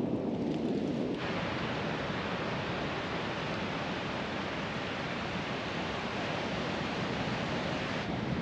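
Steady, even rushing of wind and distant surf, open and without pitch. It changes abruptly about a second in, from a lower, denser rush to a brighter, fuller hiss.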